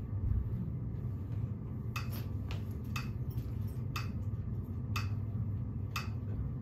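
Metronome clicking about once a second, starting about two seconds in, over a low steady room hum.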